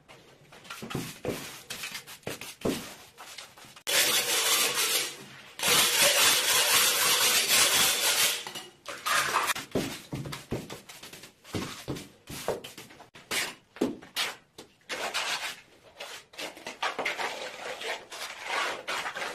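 A stiff hand brush sweeping grit and debris off a bare concrete window-sill base: separate scraping strokes, with two long stretches of steady brushing a few seconds in. Near the end a steel trowel scrapes as it spreads tile adhesive over the concrete.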